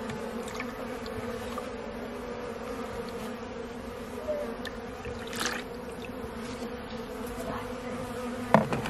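A colony of honey bees buzzing around an open hive: a steady, even hum. There is a short, louder sound near the end.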